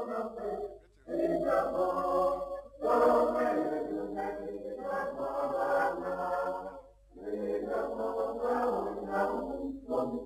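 A choir singing, several voices together in long phrases with short breaks between them.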